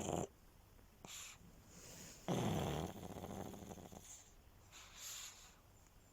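Sleeping pug snoring: a loud snore about two seconds in, with the end of another at the very start. Soft breathy exhales come in between.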